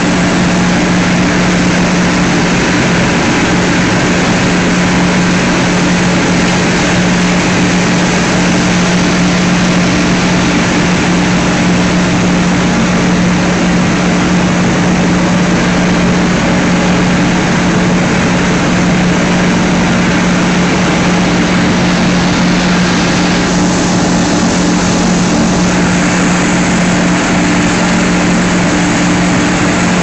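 Plastic film washing and recycling line running: electric-motor-driven conveyors, washers and crusher making a steady, loud machine noise with a constant hum.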